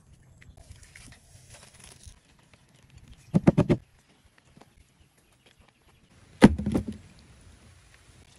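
A quick run of about five sharp knocks, then a heavier thump a few seconds later, over a faint rustle.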